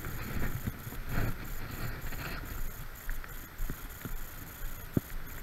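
Wind rumbling on a chest-mounted action camera's microphone, with light rustling and a few small knocks, the sharpest about five seconds in.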